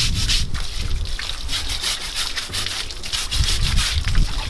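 Water from a garden hose splashing onto an elephant's wet tail and the concrete floor beneath, with a fibrous scrubber rubbing the hide. A few low bumps come near the end.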